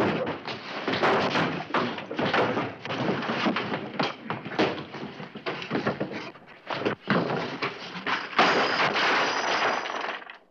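Staged fistfight: a rapid, irregular run of punches, thuds and slams, with a brief lull about two-thirds of the way through.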